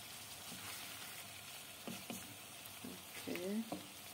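Prawns, avocado cubes and cherry tomatoes sizzling steadily in oil in a wok, stirred with wooden chopsticks, with a few light clicks about two seconds in.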